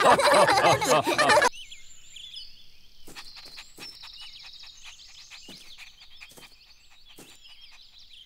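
A group of cartoon characters, children and a man, laughing together for about a second and a half, cut off abruptly. Then a quiet outdoor ambience of small birds chirping and trilling, with faint scattered ticks.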